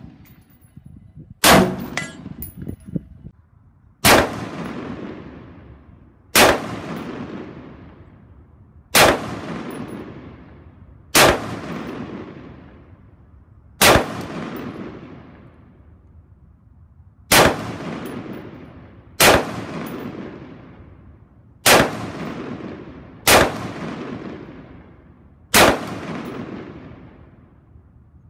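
Caracal CAR816 A2 piston-driven 5.56 mm rifle firing slow, aimed single shots, about a dozen of them two to three seconds apart. Each shot is followed by a long echoing decay.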